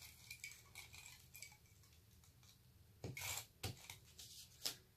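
Faint handling of cardstock while a tape runner is drawn along a paper strip: light clicks and rustles, with a short scraping rasp about three seconds in and a couple of sharper clicks after it.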